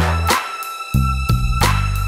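Background music with a steady beat, deep bass and sustained tones.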